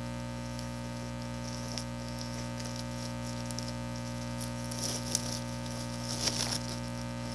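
A monitor and its packaging being handled: light rustling and scraping with a few small clicks, most of it about five seconds in and again near the end, over a steady electrical hum.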